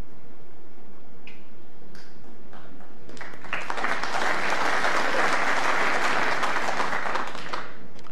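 Audience applauding for about four seconds, starting about three seconds in, after a couple of faint clicks.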